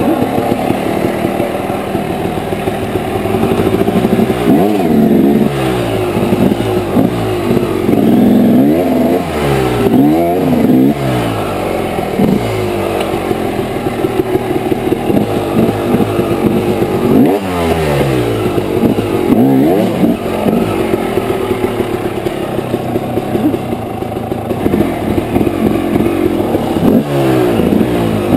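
Dirt bike engine revving up and falling back again and again as the throttle is worked hard, climbing a slick wet rock hill.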